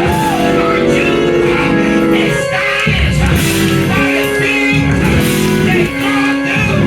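Loud church band music with guitar and held chords, playing through a pause in the preaching.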